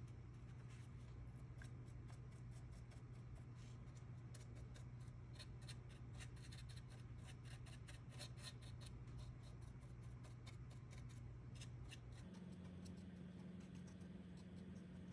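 Faint scratching and quick ticking of a stiff paintbrush dabbing dry weathering pigment onto a scale-model tank hull, densest in the middle and stopping a few seconds before the end. A steady low hum sits underneath and steps up in pitch near the end.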